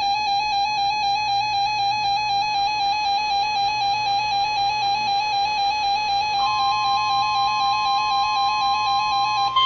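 Emergency Alert System attention tone: a loud, sustained electronic alert tone with a slight warble, starting abruptly. A second, higher tone joins about six and a half seconds in, and both cut off just before a steady beep takes over.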